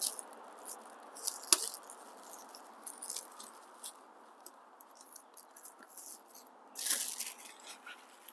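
Plastic packing wrap crinkling and rustling as it is pulled off a bicycle's front fork, in many short crackles, with a sharp click about one and a half seconds in and a louder burst of rustling near the end.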